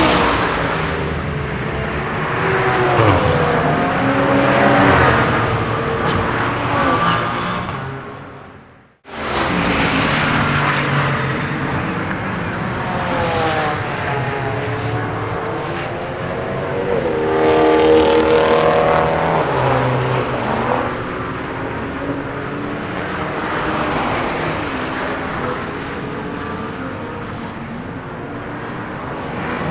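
Several race cars passing at speed, one after another, their engine notes rising and falling as they go by and often overlapping. Near the 9-second mark the sound fades out briefly and comes straight back on another run of passing cars.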